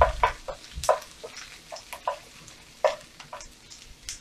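A slotted spatula stirring and scraping diced onion and peppers around a stainless steel frying pan, in about a dozen short, irregular strokes, with a faint sizzle as the vegetables sweat.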